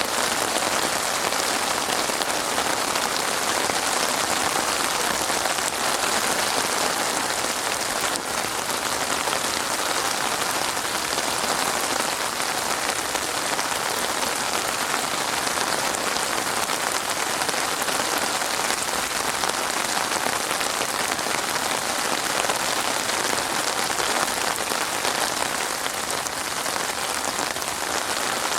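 Steady, heavy rain falling on a surface, a dense, even patter of drops.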